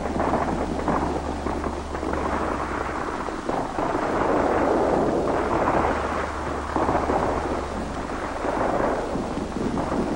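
Continuous rumbling crackle of heavy gunfire from a firefight, with a steady low hum underneath.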